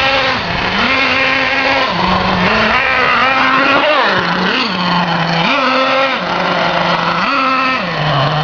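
Simson S50 moped's two-stroke single-cylinder engine being ridden hard, its revs rising and falling about five times, holding high for a second or so each time before dropping back.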